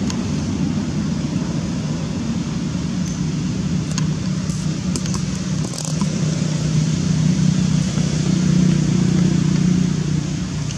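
Motor vehicle engine running: a steady low hum that grows a little louder in the second half, with a few faint clicks around the middle.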